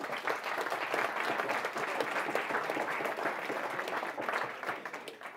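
Audience applauding, a dense round of clapping that fades out near the end.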